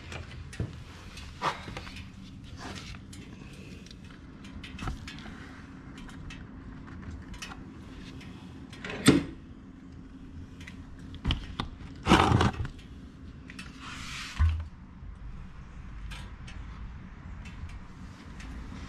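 A few sharp knocks and clinks of handling, the loudest about nine and twelve seconds in, over a faint steady hum. Meanwhile engine oil drains from a motorcycle's drain hole into a plastic drain pail.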